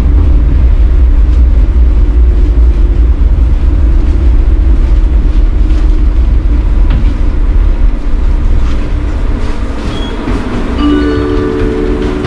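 Riding inside a tram: the car's heavy rumble and rattle while it runs along the rails eases off as it slows to a stop. Near the end a steady tone sounds for about a second.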